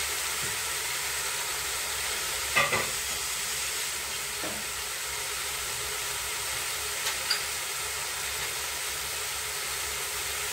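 Marinated meat sizzling in a hot stainless steel pot as it starts to brown: a steady hiss with three short pops, the first about two and a half seconds in the loudest.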